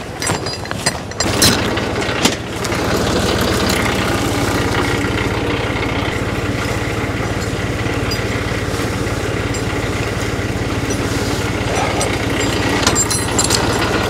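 Güldner G30 tractor's diesel engine running steadily under load while driving its rear-mounted forestry cable winch, which reels in the cable to drag the old fence out of the trees. A couple of sharp knocks in the first two seconds, then the engine picks up to a higher, steady speed about two and a half seconds in.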